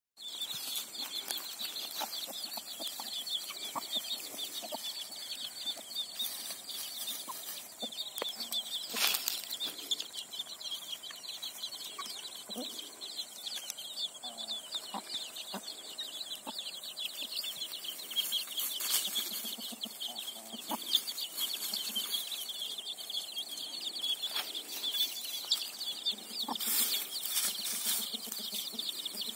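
A hen with her brood of young chicks: a steady chorus of high-pitched chick peeping, with the hen clucking now and then.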